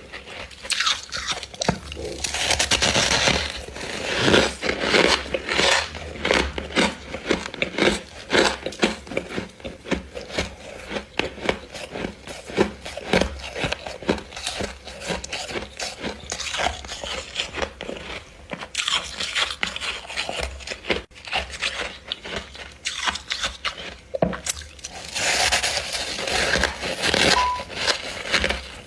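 Freezer frost being bitten and chewed close to the microphone: a dense, irregular run of crisp crunches.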